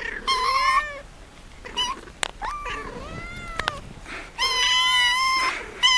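Domestic cat meowing several times, the calls rising and falling in pitch, with a longer held meow near the end.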